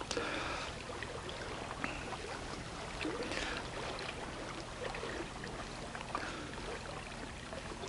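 Sea water lapping and washing against shoreline rocks: a steady low wash with small splashes here and there.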